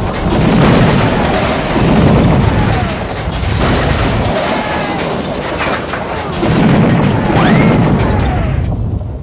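Crash and explosion sound effects for a toy train wreck: loud booming rumbles and crashing, swelling about half a second, two seconds and seven seconds in, with high squealing glides running through it. It dies away near the end.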